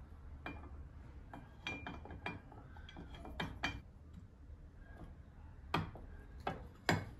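Small metal drill-press vise being wound shut on a steel bolt by its handle screw: scattered light metallic clicks and clinks, with two sharper knocks near the end.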